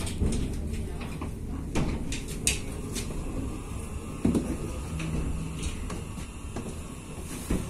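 Passenger train carriage in motion, heard from by the door: a steady low running rumble with a handful of sharp clunks and clicks from the carriage and running gear.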